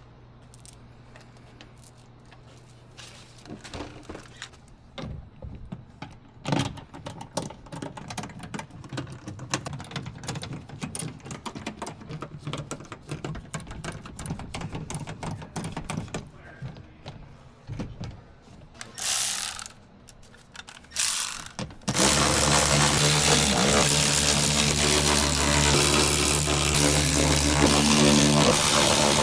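Hand ratchet clicking quickly in long runs as fasteners are driven. About two-thirds of the way through come two short hissing bursts, then a power tool starts and runs steadily and loudly to the end.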